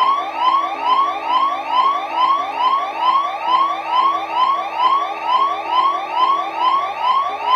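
Electronic alarm siren sounding in fast, evenly repeated rising sweeps, about three a second, each one rising and then cutting off, over a steady low hum.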